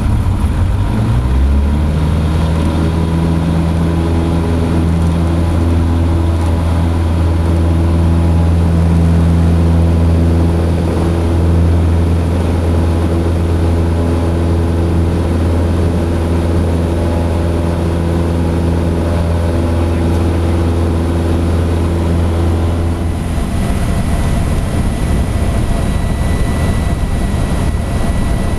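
Cessna 150's four-cylinder Continental O-200 engine and propeller at takeoff power, heard from inside the cabin through takeoff and climb: a steady low drone over a rush of wind and engine noise. About three-quarters of the way through the low drone fades, leaving the rushing noise and a faint thin high tone.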